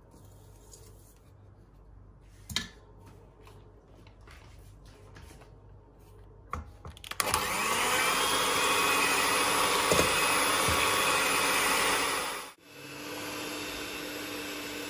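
Sugar poured onto eggs in a stainless steel bowl, with one sharp tap about two and a half seconds in. About seven seconds in an electric hand mixer starts with a rising whine and runs loud and steady, its beaters whisking eggs and sugar against the metal bowl. About twelve seconds in it drops out and comes back quieter and steadier, beating a pale frothy batter.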